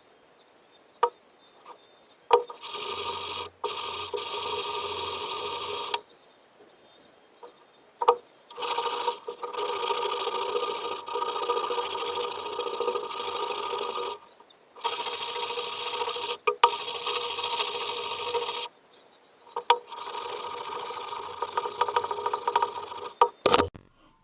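Steel pliers being sanded by hand with fine-grit abrasive, in long stretches of steady rubbing broken by short pauses, with a few sharp clicks between and a louder one near the end.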